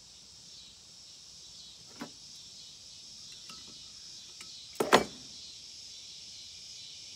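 Small metal handling noises on an air-over-hydraulic pump as a part is pressed down and worked with a hand tool: a faint click about two seconds in and a sharp double knock near five seconds. A steady high hiss sits underneath.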